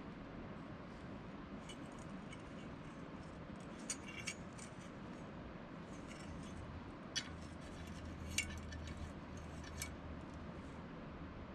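A few small sharp clinks, like metal or glass objects knocking together, over a steady background hiss: a pair about four seconds in and single ones around seven, eight and ten seconds. A low hum sets in about six seconds in.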